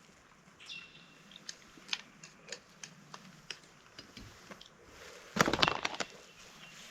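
Someone eating a camp meal of pasta: scattered small clicks and taps of an eating utensil with chewing, and one louder noisy burst about five and a half seconds in.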